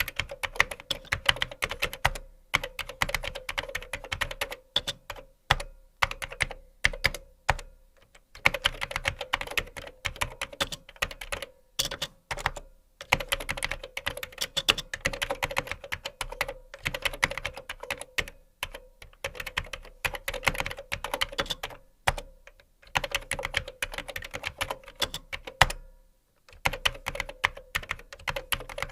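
Fast typing on a computer keyboard: rapid runs of key clicks in bursts of a few seconds, broken by short pauses and a few single louder key strikes.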